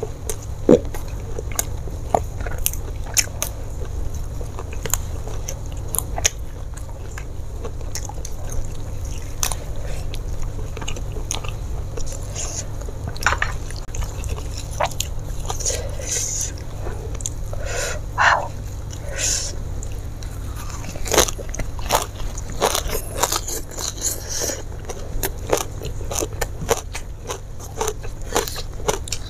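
Close-miked chewing and biting of a mouthful of raw lalapan greens and food eaten by hand: short, irregular crunchy clicks and wet mouth sounds, coming thicker from about halfway through, over a steady low hum.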